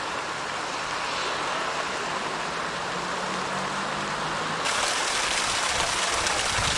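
Floodwater rushing and churning along a flooded street. About four and a half seconds in, it changes abruptly to a brighter, hissier splashing as a hose jets water over a wall onto the ground.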